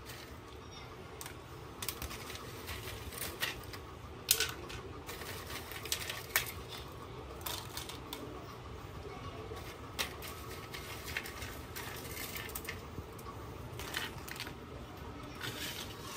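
Irregular light clicks and knocks of kitchen items being handled, over a low steady hum.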